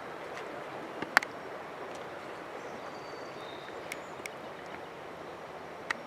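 River water flowing steadily, with a few sharp clicks, the loudest about a second in.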